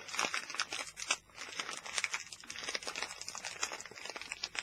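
A packet of pork scratchings being wrestled open: the bag crinkles and crackles with short tearing sounds, in a struggle to get it open.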